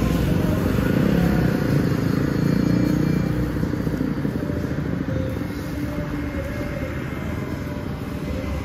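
Motorbike engine running steadily close by, a dense low-pitched drone with a fast pulse, easing off slightly about halfway through.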